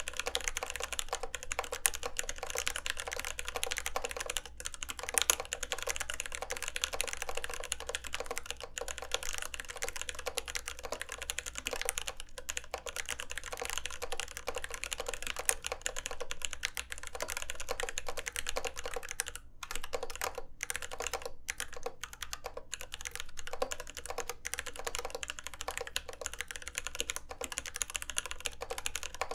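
Continuous typing on a TGR x RAMA Exent mechanical keyboard with lubed C3 Kiwi tactile switches (UHMWPE housings, 67 g springs) in a brass plate under GMK keycaps: a rapid stream of keystroke clacks with a couple of brief pauses.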